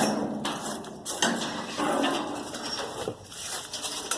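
Objects being handled and shifted, with several bursts of rustling and scraping and a few knocks.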